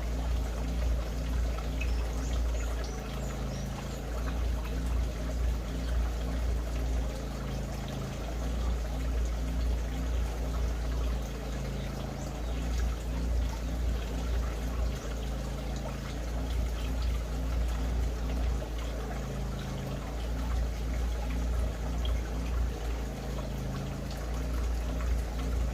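Water trickling steadily over a low hum that swells and eases every few seconds.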